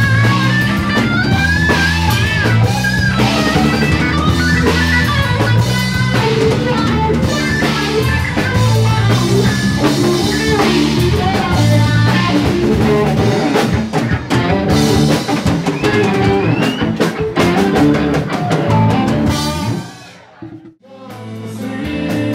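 Live rock band playing loud: electric guitar over a drum kit. About twenty seconds in the music drops away briefly, then another song fades in.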